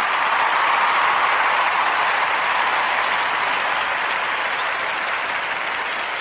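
A crowd applauding, loudest about a second in and then slowly fading.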